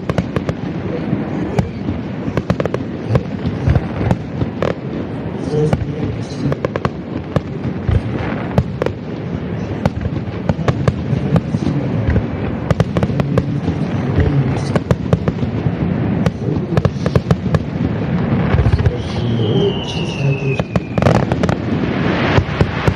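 Aerial firework shells bursting in close succession, a steady run of sharp bangs and crackles, with a falling whistle about four-fifths of the way through.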